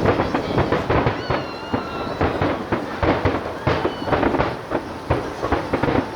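Aerial firework shells bursting in a rapid barrage, many sharp booms and crackles every second.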